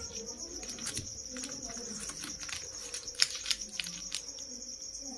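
Steady, pulsing high chirring of crickets in the background. A few sharp clicks and crinkles come from handling a cupcake's paper liner and a knife, the loudest about three seconds in.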